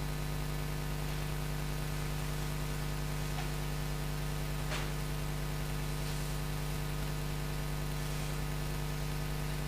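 Steady electrical hum, one unchanging low tone with several higher tones above it, in a silent room. A faint single tick comes a little before halfway through.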